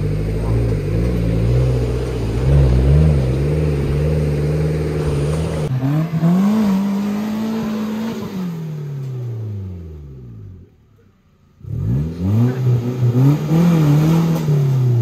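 Off-road vehicle's engine revving, its pitch climbing and falling several times. The sound drops away for about a second partway through, then the engine revs up again.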